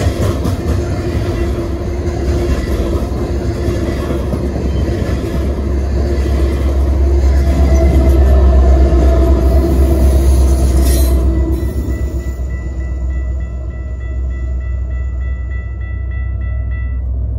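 Freight train passing at close range: coal hopper cars rumbling and clattering over the rails, with a diesel locomotive going by in the middle, where the rumble is loudest. As the train clears, a railroad crossing bell rings on in quick, even strokes.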